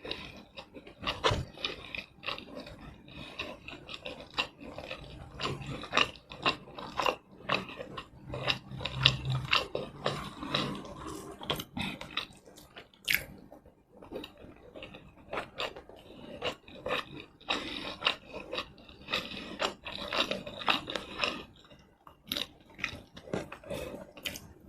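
Close-miked chewing and mouth smacking, a steady run of rapid wet clicks with a couple of brief pauses, from eating tomato rice and chicken in red chilli sauce.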